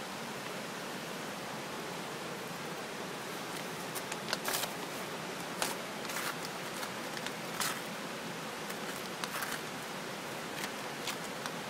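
Paper poster being peeled and torn off a wooden board wall: a string of short crackling rips and rustles, most between about four and eleven seconds in, over a steady hiss.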